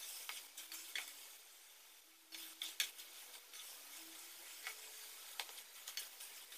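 Faint sizzle of santol fruit cooking down in thick syrup in an aluminium pot, with scattered light clicks as the sticky pieces are stirred.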